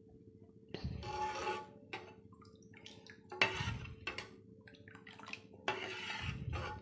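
Steel ladle stirring thin, watery rava dosa batter in a steel bowl: three wet sloshing strokes, each about a second long.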